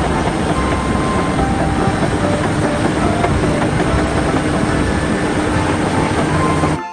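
Large Caterpillar crawler bulldozer pushing dirt: a steady diesel drone mixed with the rattle and clatter of its steel tracks.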